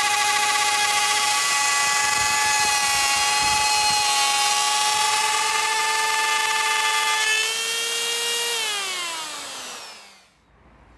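Electric plunge router running at full speed with a steady high whine while it cuts a circle in a wooden board. Near the end it is switched off and the whine slides down in pitch as the motor spins down to a stop.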